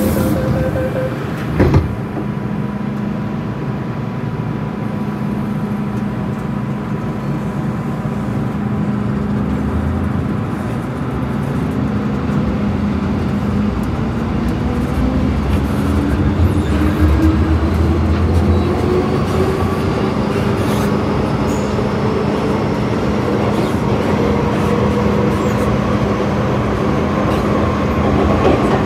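MTR M-train electric multiple unit heard on board: a short loud knock near the start, then the traction motors start to howl as the train accelerates, a whine rising steadily in pitch over the rest of the stretch.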